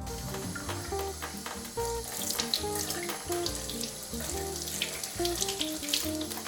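Kitchen tap water running into a sink while sardines are rinsed under it, with uneven splashing that picks up after about two seconds; background music plays along.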